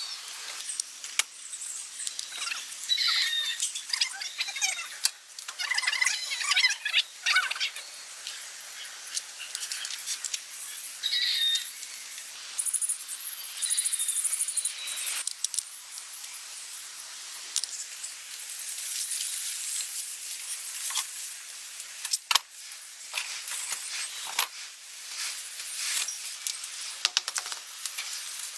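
Outdoor ambience: bird chirps in the first several seconds and again around eleven seconds in, over a steady high insect-like hiss, with scattered sharp clicks and knocks.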